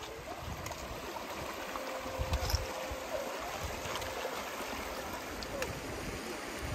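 Steady rush of running water, with low gusts of wind buffeting the microphone now and then.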